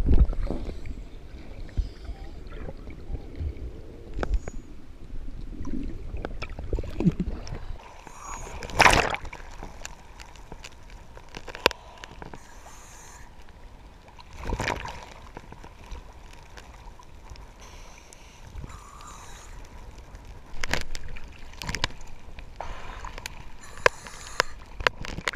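Choppy sea water sloshing and splashing around a camera bobbing at the surface, with louder splashes about nine and fifteen seconds in.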